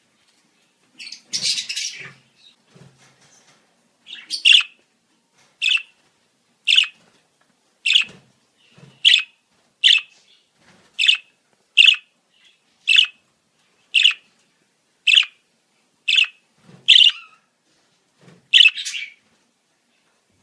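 Budgerigar calling: a short burst of chatter about a second in, then a sharp, short chirp repeated about once a second, some fourteen times.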